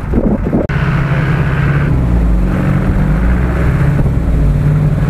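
UAZ-469 off-roader's engine running steadily under load as it pushes through a shallow icy ford, with water and ice churning around the tyres. The sound changes abruptly under a second in.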